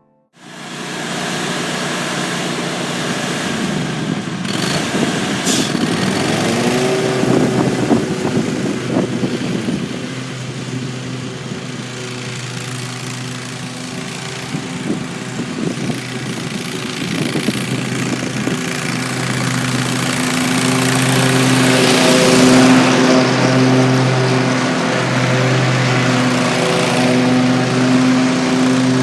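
Toro Grandstand stand-on commercial mower running under load while mowing, a steady engine drone whose pitch shifts briefly about six seconds in. The low note wavers slowly and regularly in the second half.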